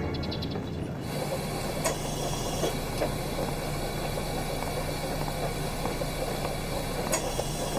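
Steady background hiss with a low, even hum, broken by a few faint short taps.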